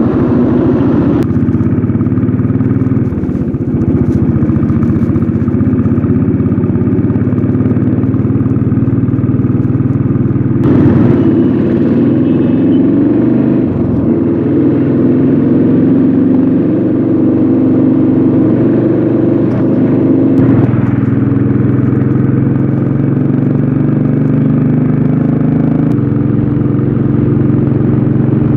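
Royal Enfield Thunderbird's single-cylinder engine through its stock exhaust, pulling away from a standstill and accelerating up through the gears, its note changing at each shift. The rider finds the stock exhaust choked up.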